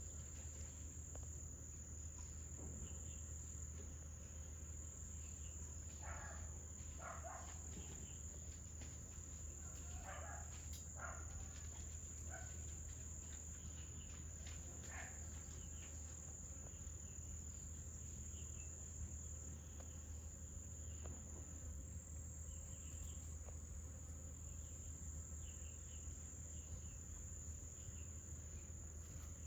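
Steady high-pitched insect chorus, like crickets, ringing without a break. A few short, high squeaky calls come through at about six, ten and fifteen seconds in.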